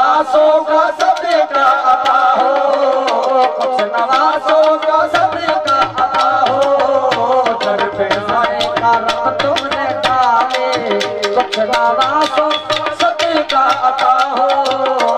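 Qawwali accompaniment with no sung words: harmonium playing sustained chords under fast hand-drum strokes, with hand-clapping. A deeper drum beat joins about five seconds in.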